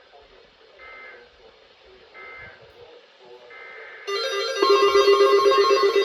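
Weather-alert receivers picking up a new severe thunderstorm warning. There are three short, faint bursts of Emergency Alert System header data tones. About four seconds in, a loud electronic alert alarm starts, a rapidly pulsing multi-tone beeping.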